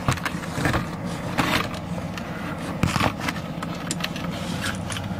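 Steady low hum inside a car cabin, with a few knocks and scrapes from a phone being handled and moved into position, the clearest about a second and a half in and again about three seconds in.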